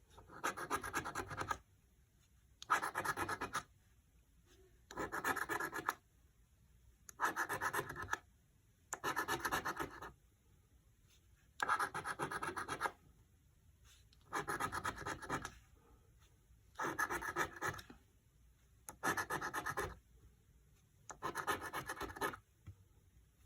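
Scratch-off lottery ticket having its coating scraped off one play spot at a time: about ten short scratching bursts, each roughly a second long, with brief pauses between as each number is revealed.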